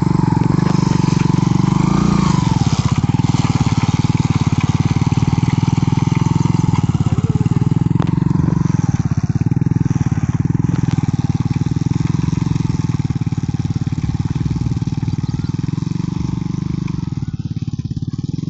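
Engine of a homemade motorcycle plough running steadily with an even, rapid chugging, easing off a little near the end.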